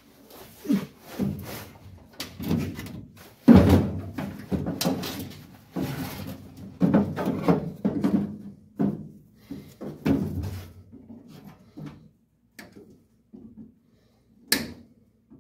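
Irregular clunks, knocks and scraping of hands-on shop work, with a heavy thump about three and a half seconds in and a sharp clack near the end.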